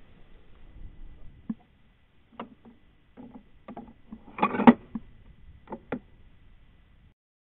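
Short metallic clicks and knocks of a Browning A-Bolt III bolt-action rifle being handled and reloaded with a cartridge by hand. The clicks come singly and in small groups, with the loudest rattle of clicks about four and a half seconds in.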